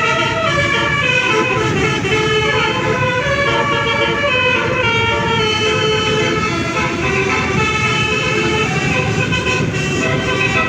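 Bus telolet horn, a Basuri multi-tone musical horn, playing a tune: several horn tones sound together and step up and down in pitch every half second or so, without a break, over a low rumble.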